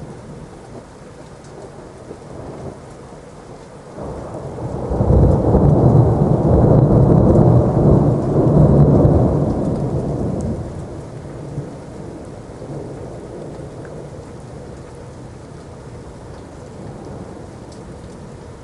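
Thunderstorm: steady rain with a long roll of thunder that swells about four seconds in, rumbles loudly for several seconds, and fades away, leaving the rain.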